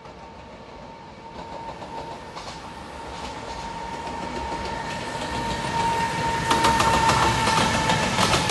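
Container freight train hauled by a JR Freight EF210 'Momotaro' electric locomotive approaching, growing steadily louder. Wheels clatter over the rail joints from about two-thirds of the way in, and a steady high tone sounds throughout.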